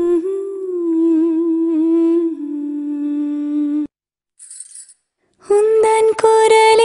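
A woman's voice hums a long held note of the ad jingle, wavering slightly, and cuts off sharply about four seconds in. After a short silence with a faint brief hiss, a music jingle with a woman singing a held note over light percussion starts near the end.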